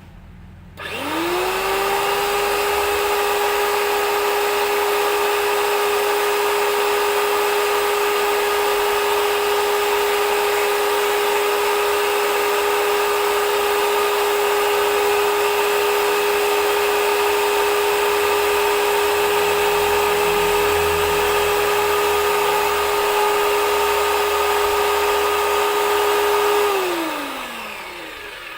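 H&L ABW VGS 70 high-pressure washer's brushed electric motor starting about a second in, quickly spinning up to a steady whine, then switching off and winding down near the end.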